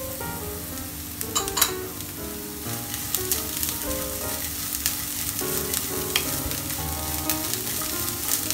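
Mung bean sprouts, onion and grated carrot sizzling in hot oil in a nonstick frying pan, stirred and scraped with a wooden spatula. Sharp scraping clicks come through, loudest about a second and a half in.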